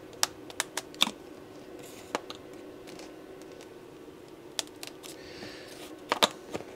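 Scattered small clicks and taps from hands handling a foam model-plane tail section and its plastic fittings, several close together near the start and a pair near the end, over a faint steady hum.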